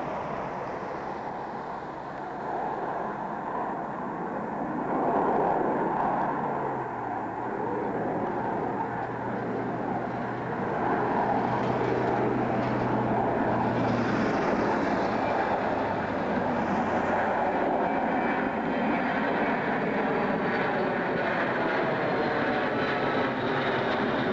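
Jet noise from a Boeing T-43A's two Pratt & Whitney JT8D low-bypass turbofans as it climbs out after takeoff. It grows louder as the aircraft nears overhead, and a faint whine falls in pitch over the last few seconds.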